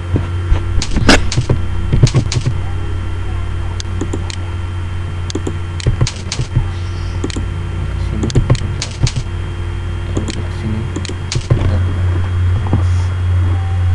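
Computer keyboard typing in irregular clicks, some close together and some spaced apart, over a steady low hum.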